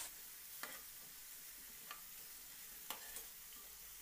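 Potato rolls deep-frying in oil in a metal wok, a faint steady sizzle. A slotted spoon turning the pieces clicks against them or the pan three times.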